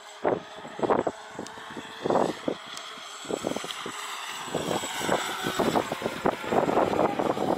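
Radio-controlled speedboat running at high speed: a thin, high motor whine that wavers slightly in pitch, overlaid by irregular loud rushing bursts from the hull and spray on the water.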